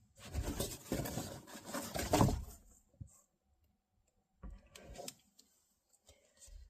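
Close handling noise: about three seconds of rustling and scraping, then a few light taps and clicks.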